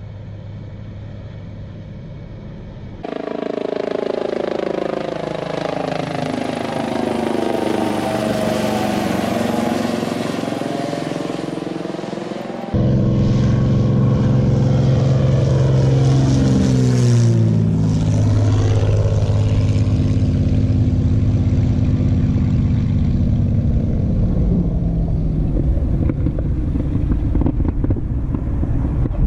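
Supermarine Spitfire LF XVI's Merlin V12 piston engine heard in two flypast shots, each dropping in pitch as the aircraft goes by. The second shot is the louder and lower, with a sharp fall in pitch about halfway through and the drone then slowly fading. The first few seconds are a quieter, steady hum from the earlier Puma helicopter clip.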